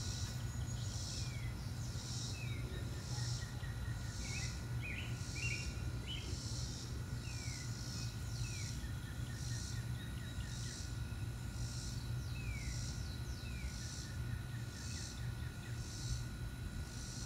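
Summer garden ambience: an insect calling in a steady pulsing rasp about twice a second, with short falling bird chirps now and then over a constant low hum.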